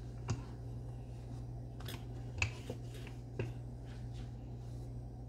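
Naan dough being rolled out with a wooden rolling pin and handled on a granite countertop: a few soft taps and knocks, spread out, over a steady low hum.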